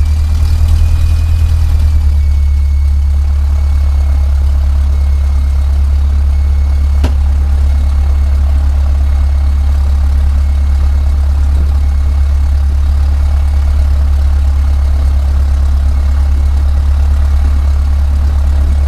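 Cessna 152's four-cylinder Lycoming O-235 engine and propeller idling steadily just after start-up, heard from inside the cabin as a loud low drone. A single click sounds about seven seconds in.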